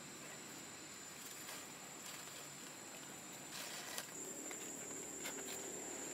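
Faint outdoor ambience: a steady, high-pitched insect drone, with a few short rustles and clicks about three and a half to five and a half seconds in.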